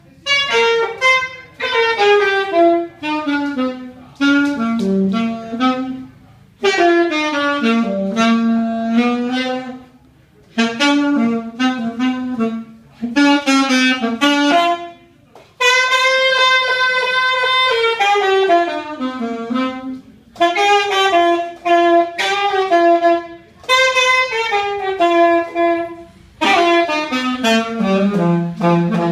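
Solo alto saxophone, unaccompanied, playing a melody in short phrases that mostly fall in pitch, with brief breaks for breath between them and one long held note about halfway through.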